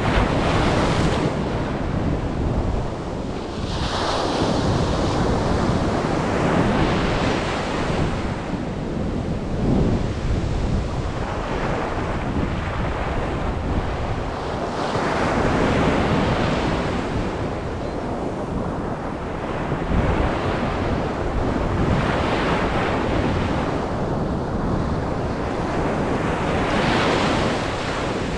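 Surf breaking on a beach, the waves swelling and washing in every few seconds, with wind rumbling on the microphone.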